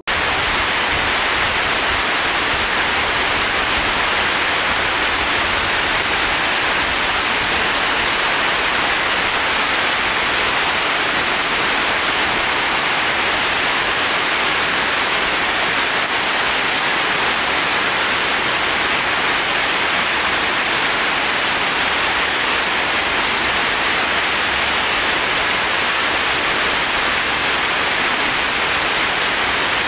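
Heavy rain falling steadily on forest foliage and a paved path: an even, unbroken hiss.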